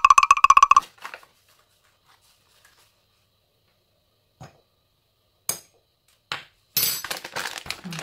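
A rapid run of ringing clinks lasting just under a second, followed by a few faint knocks. Near the end comes a stretch of crinkly rustling.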